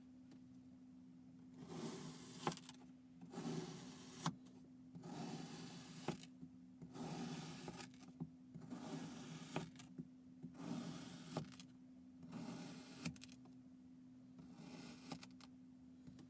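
Knife slicing repeatedly through packed kinetic sand: a crunchy scraping stroke about every one and a half to two seconds, about eight in all, several ending in a sharp tap. A faint steady hum runs underneath.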